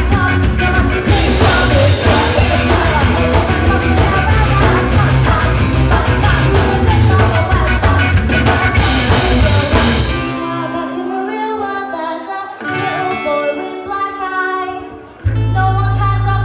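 Ska-punk band playing live with vocals, electric guitars, bass and drums. About ten seconds in, the bass and drums drop out for a quieter breakdown of held notes, and the full band comes crashing back in near the end.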